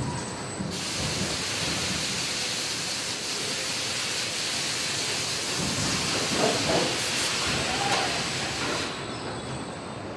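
Paint spraying in a paint booth: a steady, loud hiss of atomising spray that starts within the first second and stops about nine seconds in, over a low factory rumble.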